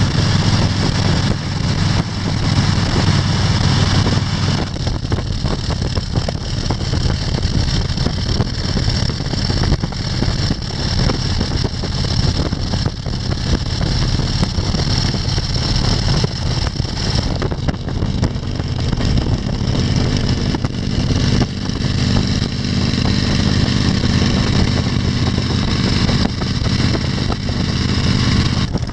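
Vehicles running at highway speed: a steady low engine drone under continuous wind and road noise.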